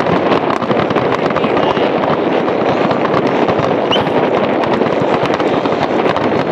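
Aerial fireworks shells bursting in a dense, continuous run of bangs and crackles, with wind buffeting the microphone.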